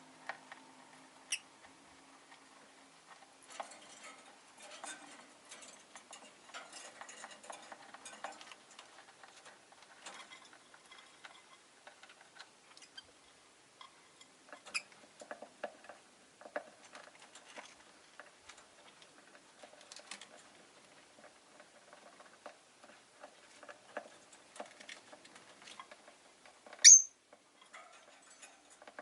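Rosy-faced lovebirds moving about their cage, with scattered small clicks, scratches and rustles. There is a short high chirp about a second in and a single loud, sharp chirp near the end.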